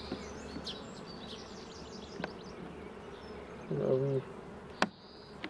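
Honeybees buzzing steadily around an open hive during an inspection. Two sharp knocks come about two and five seconds in.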